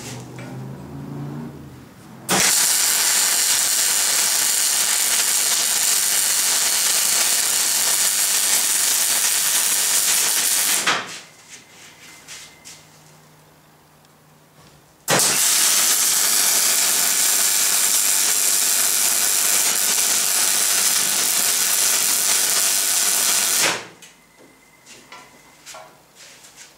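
MIG welding arc sizzling on the steel seam joining two gas tanks, in two steady runs of about eight seconds each that start and stop abruptly, with a pause of about four seconds between them.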